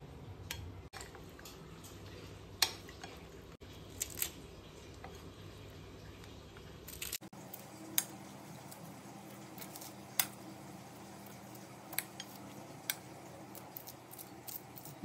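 A metal spoon clinking and scraping against a ceramic bowl in irregular, scattered taps as nachos are spooned with sauce and stirred.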